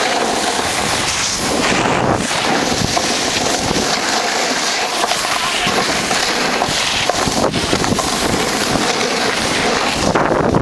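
Wind rushing over the microphone and a snowboard's edge scraping across packed snow as the rider carves downhill: a steady rush of noise.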